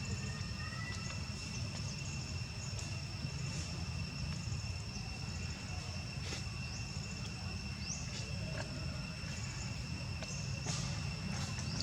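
Steady, high-pitched insect drone, crickets or similar, holding two constant pitches over a low background rumble, with a few faint clicks.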